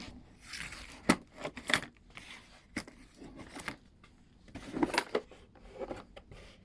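Scattered clicks, knocks and light rattles as a cordless log pruner and its box are picked up and handled.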